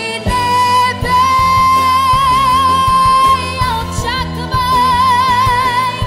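A girl sings live into a microphone over an instrumental backing track, holding two long high notes with vibrato, the first breaking off about three and a half seconds in.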